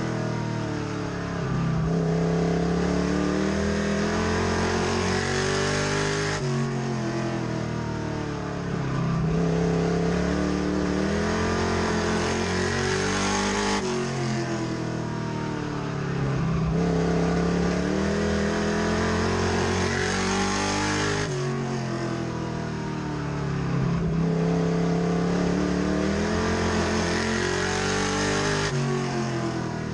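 Race truck's engine heard from inside the cockpit, under hard throttle around a short oval. Its pitch climbs down each straight and drops sharply as the driver lifts for the turns, about every seven and a half seconds.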